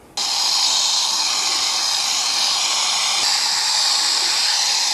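Pistol-grip garden hose spray nozzle spraying water onto a deionizer's plastic head and distributor tube to rinse off old resin: a steady hiss that cuts in suddenly just after the start, its tone shifting slightly about three seconds in.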